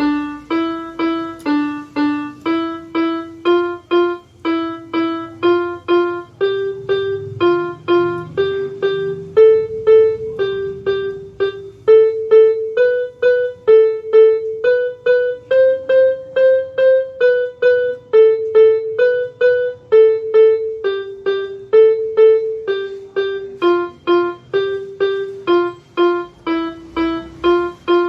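Electronic keyboard played one note at a time at an even tempo, about two notes a second: a simple practice melody that climbs gradually and then steps back down.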